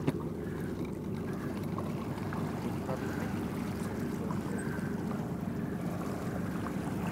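Steady low drone of a sportfishing boat's engine running while the boat holds position, with one sharp click just after the start.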